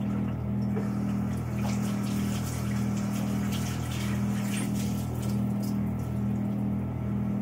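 Kitchen tap running while hands are washed under it.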